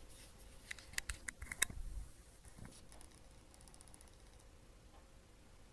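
Small clicks and taps from handling, in a quick run about a second in, then a few faint ticks a little later.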